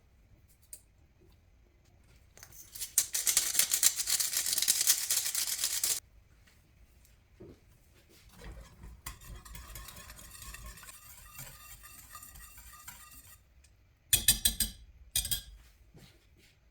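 Kitchen utensil sounds: several seconds of loud, rapid scraping strokes, then a stretch of quieter rapid strokes with low thuds, and a few sharp clatters near the end.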